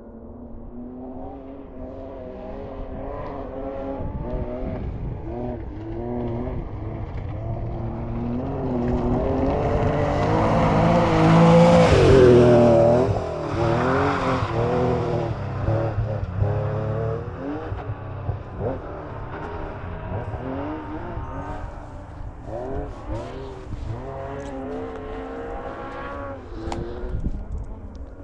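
Rally car engine revving hard and changing gear, rising and falling in pitch, growing louder over the first twelve seconds to a peak as it passes, then dropping back while it keeps revving on up the stage.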